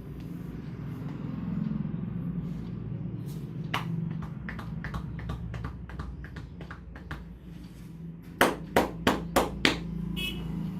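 Hands working a person's head in an Indian head massage: light, irregular tapping and rubbing, then about a second and a half of five quick, sharp percussive slaps near the end.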